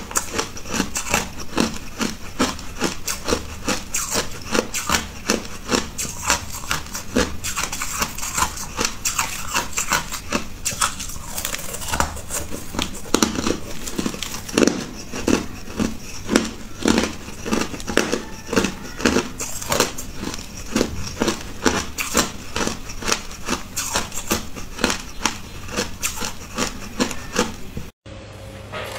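Hard crushed ice being crunched between the teeth: rapid, irregular crunches one after another, which stop abruptly near the end.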